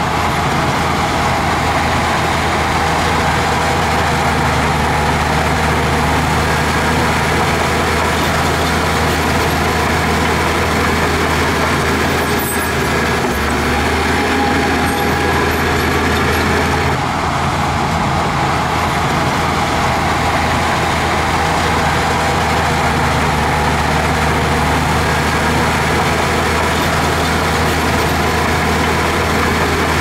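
Heavy diesel engine of earthmoving machinery running steadily under load, its low note shifting for a few seconds around the middle.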